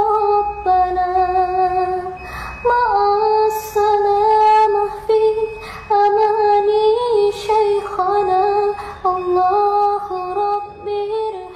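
A woman singing an Arabic sholawat solo, in long, ornamented melodic phrases with brief breaks for breath.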